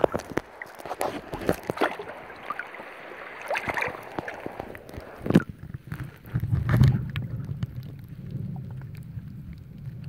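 Water sloshing and splashing against a camera held at the surface, with scattered small clicks. About halfway through it turns muffled and dull as the camera goes under water, leaving a low rumble.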